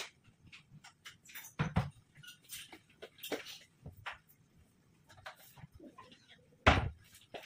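Amaranth greens cooking in oil in a lidded pan on a gas stove: irregular crackles and pops, with two louder pops, one under two seconds in and one near the end.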